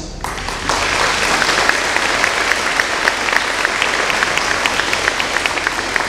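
Audience applauding in a large gymnasium, a dense patter of many hands clapping that starts a moment in.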